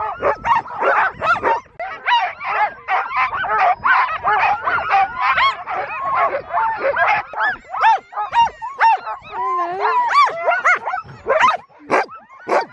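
A team of harnessed sled dogs barking, yipping and whining all at once in a dense, unbroken clamour of many overlapping voices. It is the excited din of sled dogs held at a stop and eager to run on.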